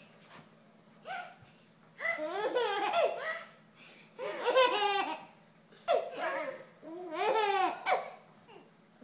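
Baby laughing in about five short bursts, with brief quiet gaps between them.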